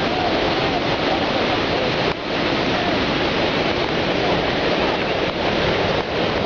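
Jog Falls, a tall waterfall, pouring: a steady, heavy rush of falling water, with a brief dip in level about two seconds in.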